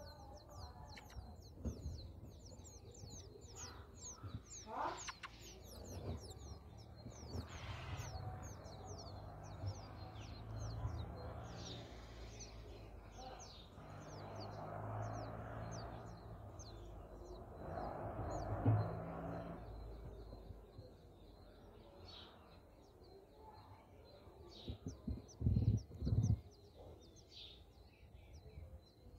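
Small birds chirping: many short, high chirps follow one another quickly, over a low background rumble. Two dull knocks come near the end.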